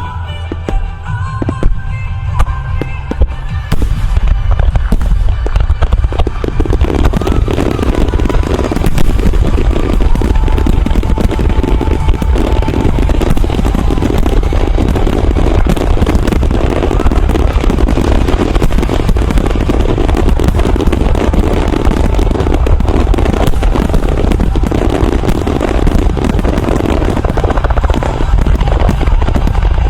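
Aerial fireworks show set to music: a few bangs over the music, then from about four seconds in a dense, continuous barrage of booming shell bursts and crackle.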